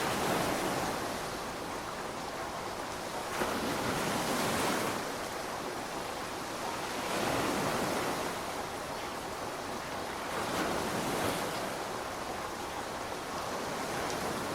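Steady heavy rain, a dense hiss that swells louder every three to four seconds.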